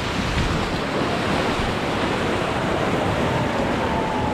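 Rushing river water around a raft on the Ganges, a steady loud wash, with wind buffeting the microphone. A faint drawn-out tone sounds about three seconds in.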